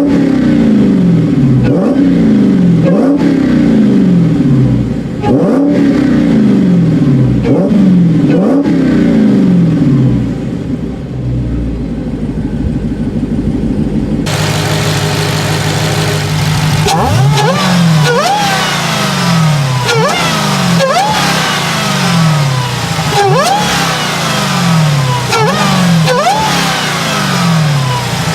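Supercharged car engines revved in repeated quick blips, the whine rising with each blip and falling back as the revs drop. About halfway through there is an abrupt cut to a second car doing the same, its whine sweeping higher.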